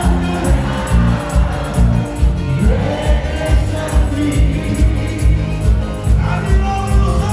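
Cuarteto music with singing over a steady, bouncing dance beat.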